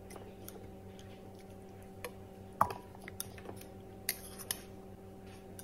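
Kitchen tongs clicking and tapping against the slow cooker's crock as raw chicken breasts are laid in: a handful of sharp, separate clicks, the loudest about two and a half seconds in, over a steady low hum.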